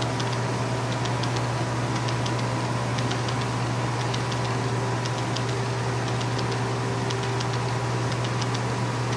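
HO scale model train running: a steady low hum with scattered light, irregular ticks of the hopper cars' wheels over the rail joints.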